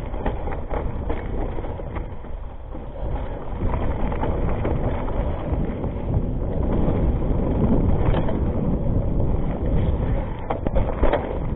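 Rockrider ST 520 mountain bike descending a dirt and rock trail: wind buffeting the microphone, tyres rolling over the ground and the bike rattling over bumps. A quick cluster of sharp knocks comes near the end.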